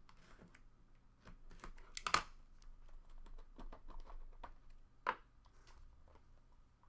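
Trading card box and pack packaging being opened and handled: crinkling and tearing of wrapper with scattered light clicks and rustles, the loudest a little after two seconds and again about five seconds in.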